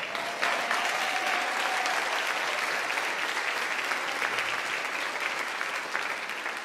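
Audience applauding, a dense crowd of hand claps that starts about half a second in and slowly tapers off near the end.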